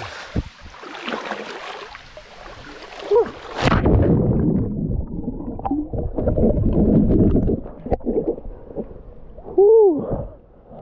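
Water splashing and lapping against a camera held at the surface of a swimming hole. A few seconds in, the camera goes under and the sound turns muffled and low, a dull underwater sloshing and gurgling. Near the end comes one short, loud vocal cry that rises and falls in pitch.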